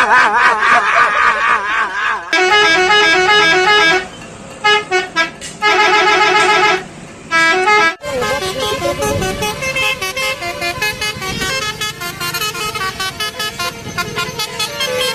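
Telolet bus horn, a multi-tone Basuri horn, playing melodic tunes in quick stepping notes: a short run, then several short bursts and one longer one, then a longer continuous melody.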